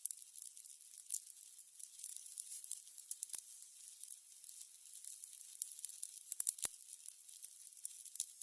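Burning candles crackling: a dense patter of small, irregular crackles, with a louder pop about three seconds in and another pair of pops a little after six seconds.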